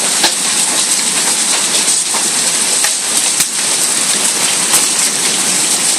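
Hail pelting down hard: a dense, steady hiss of falling ice with many sharp separate clicks of hailstones striking hard surfaces.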